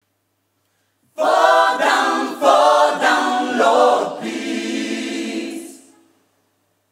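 Gospel choir singing in harmony, starting about a second in with a few short phrases and ending on a held chord that fades out near the end.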